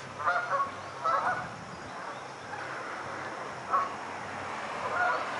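Waterfowl on the lake calling: short, nasal calls in quick clusters of two or three within the first second and a half, then single calls about two thirds of the way through and near the end.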